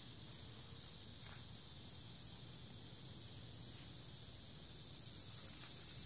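A steady, high-pitched chorus of insects, growing louder near the end.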